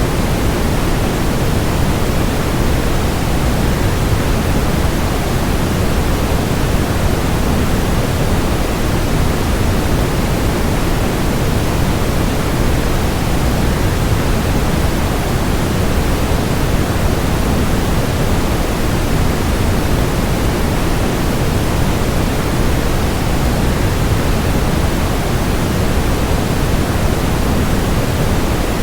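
Waterfall rushing in a steady, unbroken wash of noise, heaviest in the low end and unchanging throughout.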